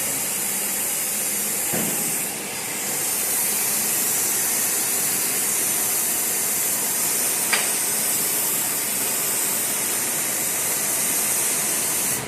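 CNC plasma cutting torch hissing steadily as it cuts metal, with a brief dip about two seconds in and a couple of faint clicks, then cutting off sharply at the end.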